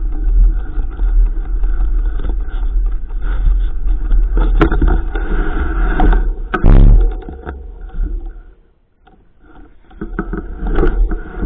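Wind rumbling on the microphone and the rattle and scrape of a mountain bike riding over rough ground, with a loud jolt a little past halfway and a brief lull soon after.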